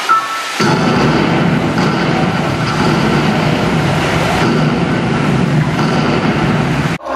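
Loud, steady rumbling roar from the theatre's sound system during the stage show, with faint music beneath it. It starts just under a second in and cuts off abruptly near the end.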